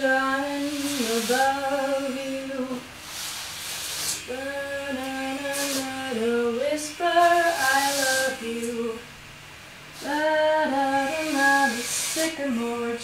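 A woman singing a tune unaccompanied, holding notes with short pauses between phrases, over the scratchy swish of a broom sweeping a plywood floor.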